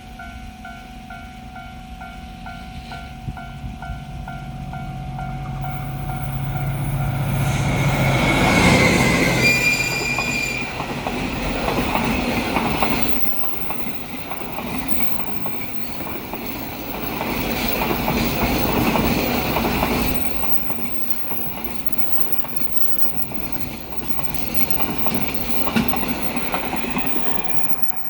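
A level-crossing bell rings a steady repeating two-tone chime while the engine drone of a DF200 diesel-electric freight locomotive grows and peaks as it passes at high speed. A short high tone sounds about ten seconds in. Then a long train of container wagons rushes by, its wheels clacking in rhythm over the rail joints, the noise rising and falling until it fades at the end.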